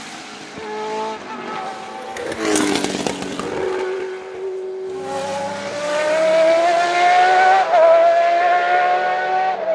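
Historic normally aspirated Formula One car engines at racing speed. One car goes past with its note falling in pitch about two and a half seconds in. Then an engine note climbs steadily as a car accelerates, with a brief break in the note near the end.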